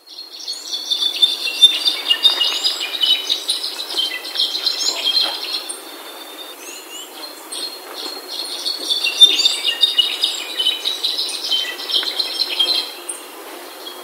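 Aztec thrush calling: two long bouts of rapid, high chattering notes, with a quieter gap of about two seconds between them.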